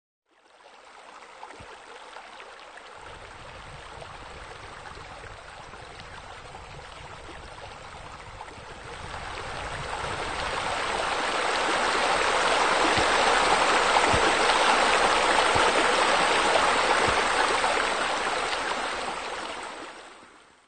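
Pool water feature running: a steady rush of falling, splashing water that swells about halfway through and fades out at the end.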